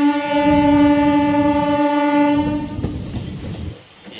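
Train horn sounding one long steady note that cuts off about two and a half seconds in, over the rumble of a moving train.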